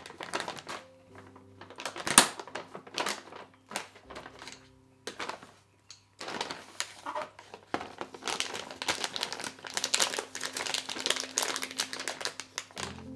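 Plastic snack bags crinkling as they are folded over and closed with 3D-printed plastic bag clips, with a sharp click about two seconds in. Long stretch of dense crinkling in the second half, over faint background music.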